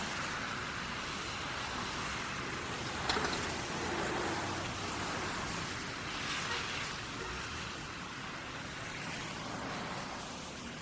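City road traffic at a busy intersection under a bridge underpass: a steady rush of tyres and engines, with vehicles passing in swells, and a sharp knock about three seconds in. It eases slightly near the end.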